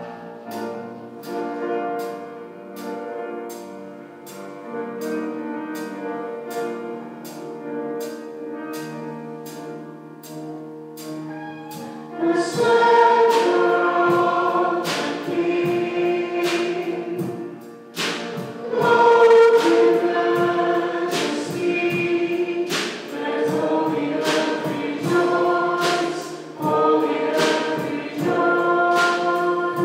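Worship song with a music group: sustained chords over a steady tick about twice a second, then about twelve seconds in a congregation and the group begin singing together, louder.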